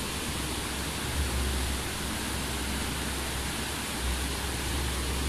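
A river rushing through a rocky gorge below: a steady, even roar of water with no let-up. It is loud enough to drown out faint voices.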